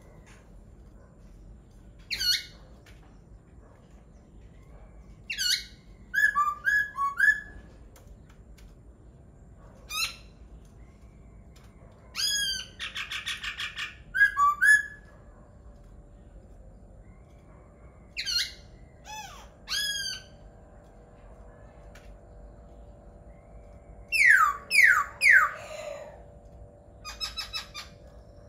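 Laughingthrush singing: loud, high whistled phrases and sweeping notes in short bursts a few seconds apart, with a fast rattling trill about halfway through and a quick run of three down-sweeping whistles near the end.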